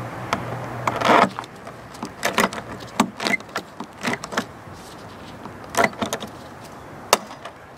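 Hand rivet gun being squeezed stroke by stroke, pulling an aluminum Olympic blind rivet set in aluminum sheet: a series of sharp metal clicks and clacks, the loudest about a second in.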